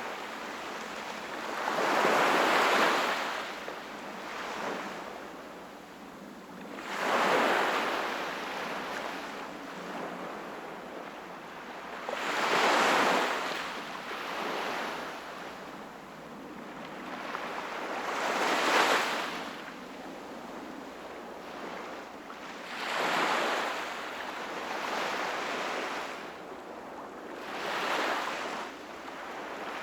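Sea waves breaking and washing on the shore, six surges about five seconds apart, each swelling and fading over a steady background wash.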